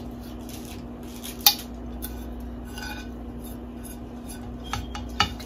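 A ceramic plate and small bowl clinking as they are handled: one sharp clink about a second and a half in, then a few light taps near the end, over a steady low hum.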